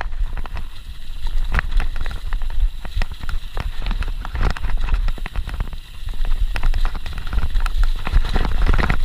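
Mountain bike rattling and clattering over a rough dirt and leaf-litter trail at speed, with many irregular knocks and clicks from the frame, chain and suspension. A steady low rumble of wind buffets the camera microphone underneath.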